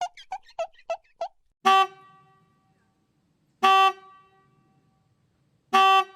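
A quick run of five short squeaky chirps, then a horn honking three times, each a short loud blast about two seconds apart with a brief echo after it.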